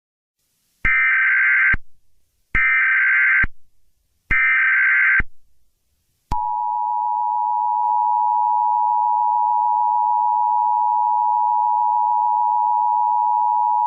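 Emergency Alert System alert start: three one-second bursts of SAME header data a second apart, then, from about six seconds in, the steady two-tone EAS attention signal.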